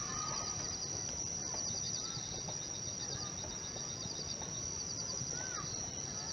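Outdoor nature ambience: a steady, high-pitched insect drone with fast, repeating chirps, and a few short bird whistles, one falling whistle near the end.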